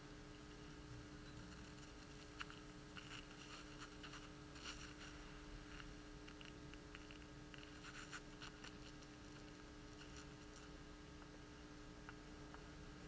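Near silence: room tone with a steady low hum and a few faint, scattered clicks and rustles.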